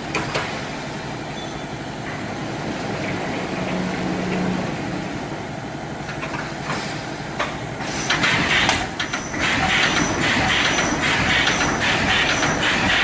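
CNC welded wire mesh machine running, a continuous mechanical clatter. About eight seconds in it grows louder, with rapid repeated strokes as the welding head works and throws sparks.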